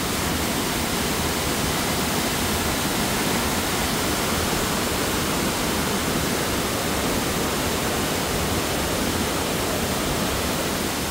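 A large waterfall on a river swollen by heavy rain, its water rushing down in a steady, unbroken roar of noise.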